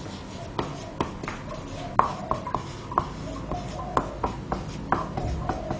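Marker writing on a whiteboard: irregular short squeaks and taps of the felt tip against the board.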